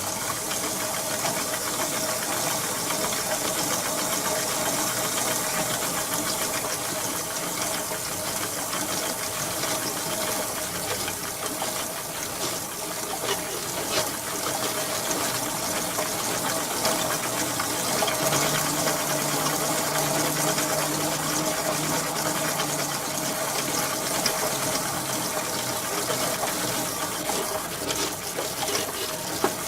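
Arena crowd noise: a steady, dense din of many voices, with a few faint sharp knocks.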